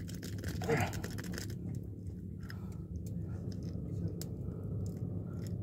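Faint clicks and scratches of a micro jig's hook and its metal rings being handled and worked out of a small fish's mouth, over a steady low hum. One brief louder sound just under a second in.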